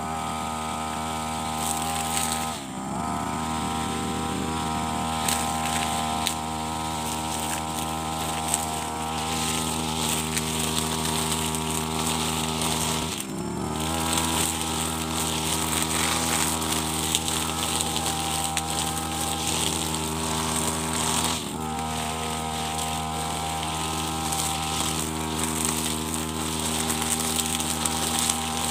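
Petrol brush cutter with nylon trimmer line running at high speed while cutting grass. Three times the engine pitch drops briefly and climbs back as the throttle is eased and opened again.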